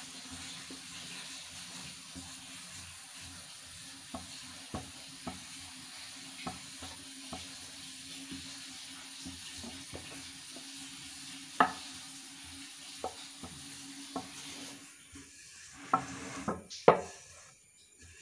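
A wooden rolling pin rolls out stuffed holige dough on a floured board, with scattered light knocks of the pin. Under it runs a steady sizzling hiss from flatbread cooking on the hot griddle, which fades about three-quarters of the way through, followed by a few louder knocks.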